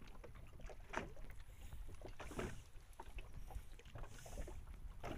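Quiet low rumble of wind and water around a small boat, with a few faint short handling noises as a caught fish is unhooked by hand.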